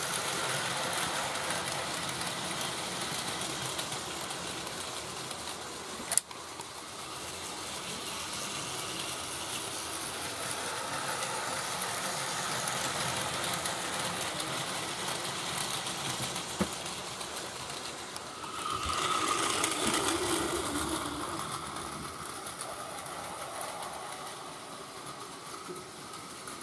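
Battery-powered Plarail toy train, a full-length 323 series set, running on plastic track with a steady whir of its small motor. There is one sharp click about six seconds in, and the sound grows louder for a few seconds about three-quarters of the way through.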